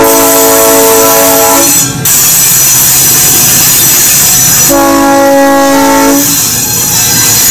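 Diesel switcher locomotive's multi-chime air horn sounding a loud chord of several notes, cutting off about two seconds in. The train's rolling and wheel noise fills the gap, then a second horn blast of about a second and a half comes near the end.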